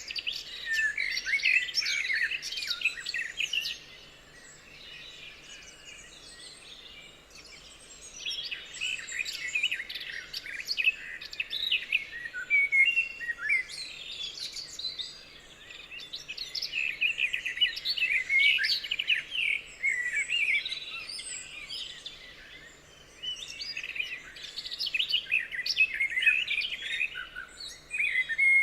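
Songbirds chirping and singing in dense bursts of quick, high chirps lasting a few seconds, with short quieter gaps between the bursts.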